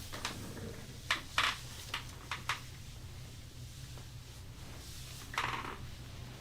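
Hands rubbing and brushing over a client's back during a massage: several short strokes in the first few seconds, then a longer one near the end, over a low steady room hum.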